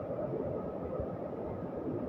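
Steady rushing of fast-flowing water from a waterfall and river, an even low noise with no distinct events.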